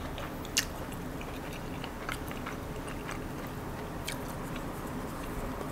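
Quiet eating sounds: soft chewing and scattered light clicks of a wooden fork and spoon against a ceramic bowl as spaghetti is twirled and lifted, the sharpest click about half a second in.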